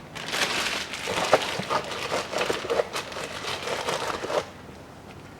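Plastic packaging rustling and crinkling, with small clicks, as a new stabilizer link's package is handled and searched for nuts; it stops after about four and a half seconds.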